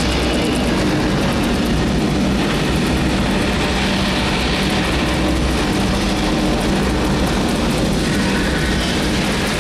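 Recorded sound of the Apollo 8 Saturn V rocket lifting off: a steady, loud rumble with a dense hiss over it.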